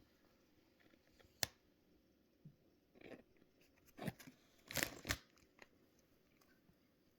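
Plastic candy packaging being handled and opened: a sharp click, then several short crinkling, tearing rustles, the loudest pair about five seconds in.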